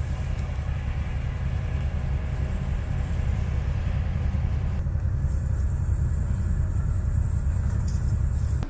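Boat engine running steadily, a low rumble with a faint hum above it; the hiss over it drops away about five seconds in.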